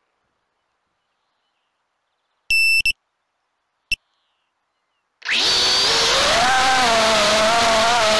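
Two short electronic beeps and, about a second later, a single blip from the quadcopter, typical of arming. About five seconds in, the Diatone GT R349 HD quadcopter's brushless motors spin up to a loud whine with propeller wash, heard from its onboard camera, the pitch wavering slightly as it lifts off.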